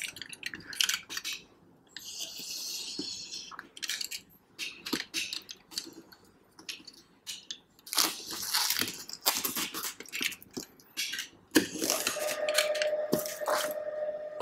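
Box cutter slitting the plastic shrink-wrap on an iPad Pro box, then the film crackling and tearing as it is peeled off, in irregular bursts. A steady tone comes in about two seconds before the end.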